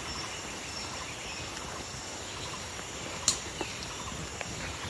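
Tropical forest ambience: a steady high-pitched insect drone with a few faint bird chirps, and one sharp click about three seconds in.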